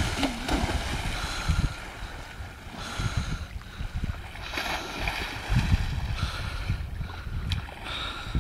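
Splashing and sloshing of shallow sea water as a person dives in, wades and swims, with gusts of wind on the microphone.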